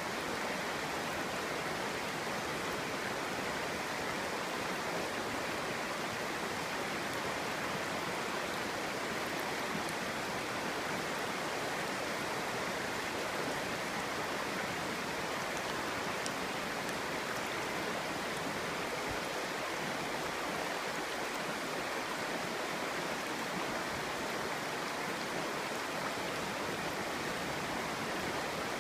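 Clear, shallow stream flowing steadily over stones: an even, unbroken babbling of water.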